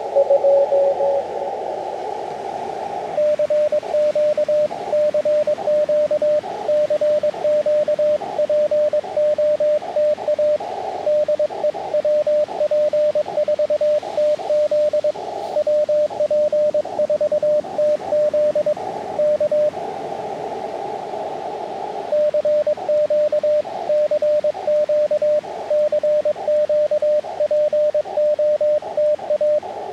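Morse code from a portable ham radio transceiver: a single beep tone keyed on and off in dots and dashes. Twice, at the start and again about two-thirds through, the keying gives way to the receiver's hiss through its narrow CW filter. A fainter tone from another station sounds in that hiss at the start.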